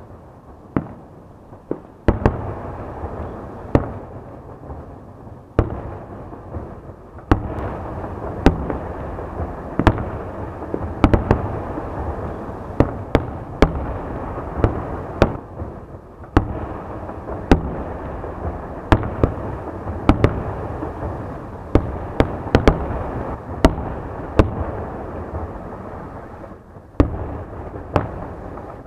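Aerial firework shells bursting in a display: sharp bangs about once a second over a continuous rumble of further bursts.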